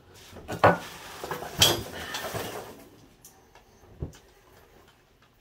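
Metal clanks and rattling from an engine stand as a BMW M54 engine is turned on it. There are two sharp, ringing clanks about half a second and a second and a half in, then rattling, and a single dull knock about four seconds in.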